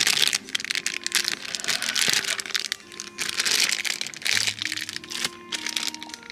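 Packaging crinkling and rustling in repeated short bursts as a blind-box figure is unwrapped, over quiet background music.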